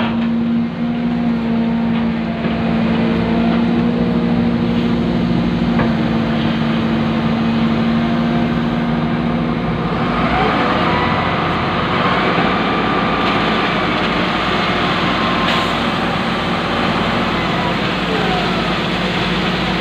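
Excavator engine running steadily, heard from inside the cab. About halfway through, the steady low hum gives way to a rougher, noisier machine sound.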